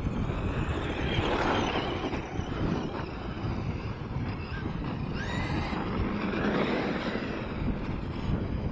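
Radio-controlled trucks driving on a dirt track: motor and drivetrain whine swelling and fading with the throttle, with wind buffeting the microphone.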